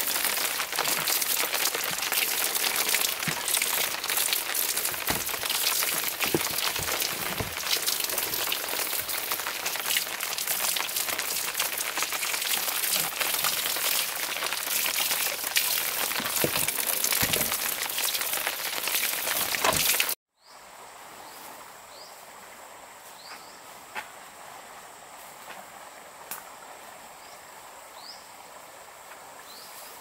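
Heavy rain pattering on surfaces, a dense steady hiss full of small drop hits. About two-thirds of the way through it cuts off suddenly to a much quieter rural background: a steady high insect drone and a few short rising chirps.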